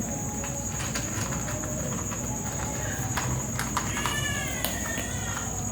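Cats eating, with scattered clicks and crunches of chewing, over a steady high-pitched insect-like drone. A short wavering call is heard about four seconds in.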